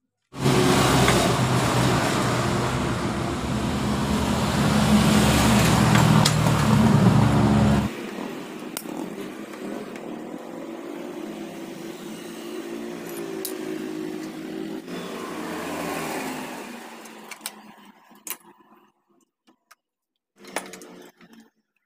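Power tool undoing the engine-to-frame mounting bolts on a motorcycle. It runs loud and steady for about eight seconds, then quieter with a wavering pitch until about seventeen seconds in. A short metal clatter follows near the end.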